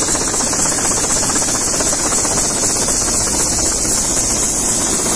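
Helicopter running on the ground, a steady loud mix of high engine whine and rotor noise.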